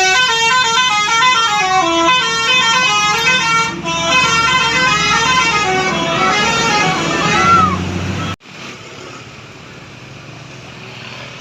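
Multi-tone telolet bus horn of the Basuri type playing a stepped melody of several notes for about eight seconds. A low rumble grows under the last notes, and then the sound cuts off abruptly. A steady, quieter background noise follows.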